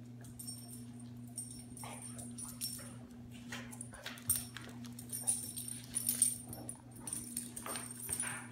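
Two dogs play-fighting: short, irregular dog vocal sounds and scuffling, busiest in the second half, over a steady low hum.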